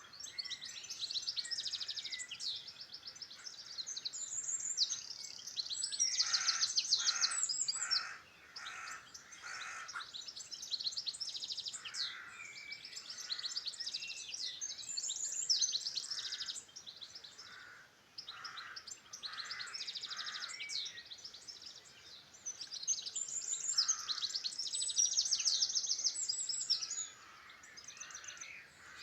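Several songbirds singing at once: fast, high trills and chirps overlap almost without a break. Runs of lower notes, repeated about twice a second, come in about six seconds in and again from about twelve seconds.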